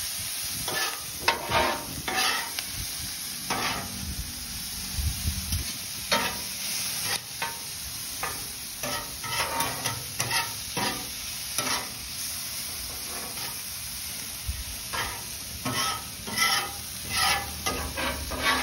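Vegetables sizzling on a steel flat-top griddle while two metal spatulas scrape and toss them, the scrapes coming in quick, irregular strokes over a steady hiss.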